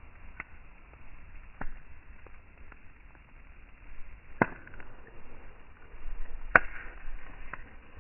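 Wood campfire crackling: a few sharp pops from the burning logs, the two loudest about four and a half and six and a half seconds in, over a steady low rumble.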